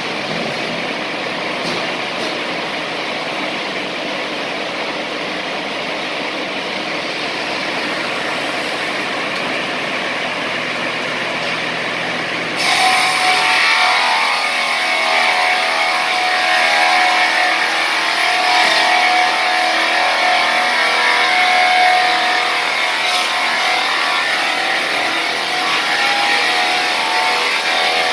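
Carriage-type multi-blade saw machine running steadily. About halfway through it turns louder and starts a high whine as the saw blades cut lengthwise through a log, ripping it into boards.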